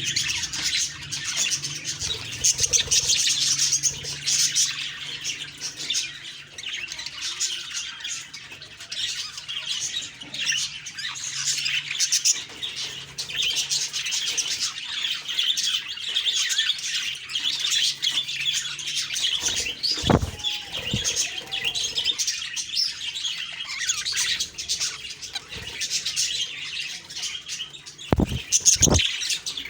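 Budgies (budgerigars) chirping and chattering without a break, with a few short low knocks about two-thirds of the way through and again near the end.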